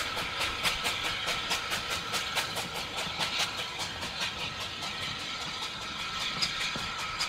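2 ft narrow-gauge steam train moving off along the line, with an even run of clicks, about four or five a second, over a steady rumble and hiss.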